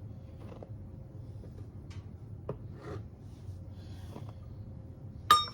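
Soft scraping and rustling of flour being scooped and measured. Near the end comes a sharp clink with a brief ringing tone.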